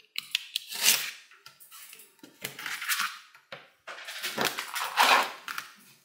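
Small magnetic balls clicking and rattling against one another as a flat sheet of them is peeled off a card and rolled up into a block, in three main bursts of quick clicks.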